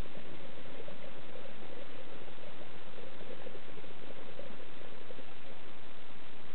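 Underwater sound heard through a camera housing: a steady hiss, with a scuba diver's exhaled bubbles bubbling for about five and a half seconds and then stopping.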